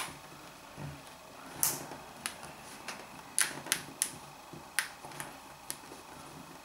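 Sharp, irregular plastic clicks and ticks, about ten in all, as a replacement ear pad's plastic lock ring is pushed by hand under the rim while the leather is pulled over it.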